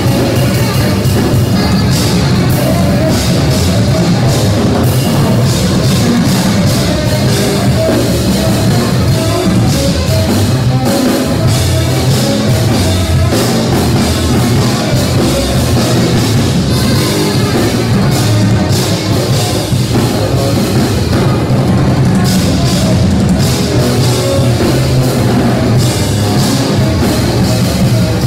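A live trio of tenor saxophone, electric guitar and drum kit playing loud, dense music.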